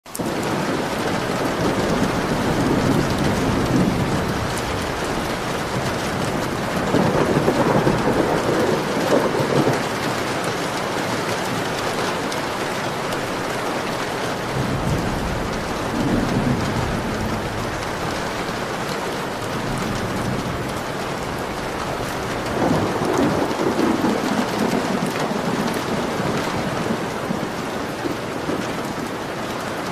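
Heavy rain falling steadily, with thunder rolling in and fading away about four times.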